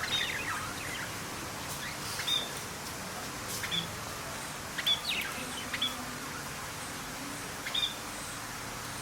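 Budgerigars chirping in short, scattered calls over a steady background hiss.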